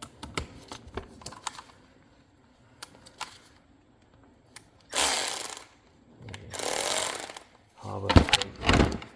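A handheld power tool run in two short bursts, about five and six and a half seconds in, while a worm-gear hose clamp is tightened on a radiator hose. Light clicks and knocks of handling come before and after.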